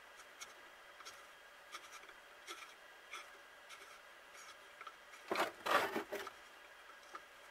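Small metal clicks and scrapes of a GAZ-66 carburetor's parts being handled and fitted together during reassembly, with a short louder rasping clatter of metal on metal a little past five seconds in.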